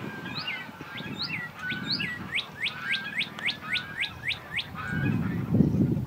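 A songbird singing a series of clear down-slurred whistles: a few spaced notes, then a fast even run of about five notes a second that stops short.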